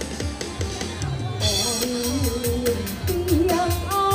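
Taiwanese opera (gezaixi) music from a stage performance: a steady beat, joined about a second and a half in by a singer's wavering melody as the accompaniment grows fuller and brighter.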